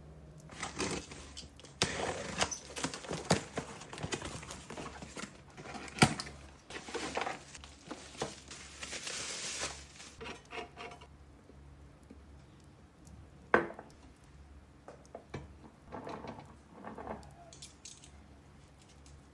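Dishes and utensils being handled: a busy run of clinks, knocks and scrapes for about ten seconds, then a few scattered knocks, one of them sharp.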